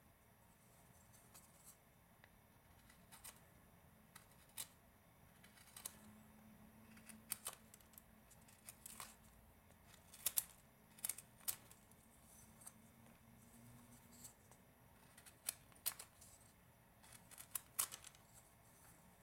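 Carving knife whittling a small hand-held wooden carving: irregular sharp snicks as the blade slices off small chips, bunched more closely around the middle and again near the end.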